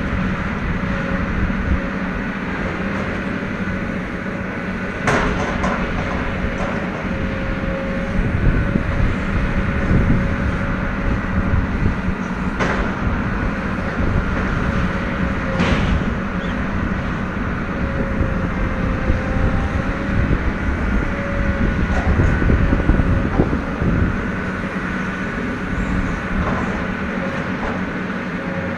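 Atlas 1804MI material handler's diesel engine running steadily under work, with a steady mechanical whine over it. Three sharp knocks stand out, about five seconds in and twice more later.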